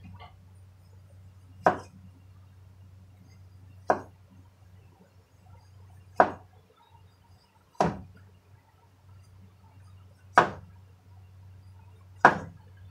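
Kitchen knife cutting through small raw potatoes into a wooden cutting board: six single sharp knocks, each cut landing about every two seconds.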